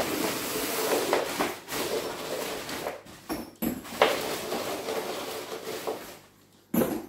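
A plastic bag rustling and pieces of ceramic filter media clattering as they are tipped out of it into a bakki shower tray, with a short pause about three seconds in.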